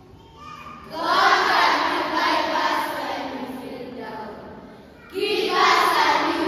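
Children's choir voicing words together in unison, in two phrases: a loud one starting about a second in that trails off, then another loud one near the end.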